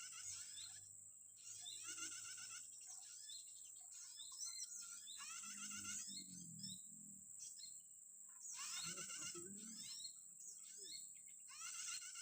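Small songbirds chirping in repeated bursts of high, fast trills, one every second or two. A lower sound comes twice, about halfway through and again near the end.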